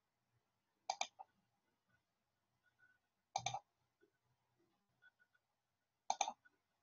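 Three faint, sharp clicks, about two and a half seconds apart, against a very quiet background.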